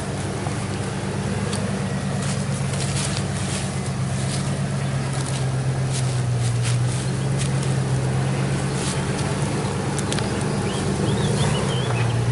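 Dodge Ram 1500 engine running at low, steady revs through a Borla S-Type cat-back exhaust while the truck crawls over rough off-road ground, the pitch dipping briefly near the end. Scattered sharp clicks and crunches sound over it.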